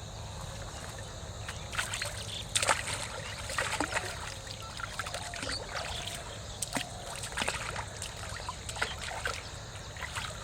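Water sloshing and trickling, with irregular small splashes scattered through.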